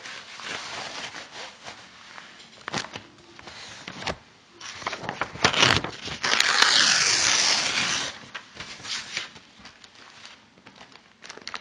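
Paper and wrapping rustling and crinkling as it is handled on a desk, with scattered light clicks and a louder, denser stretch of crinkling about six to eight seconds in.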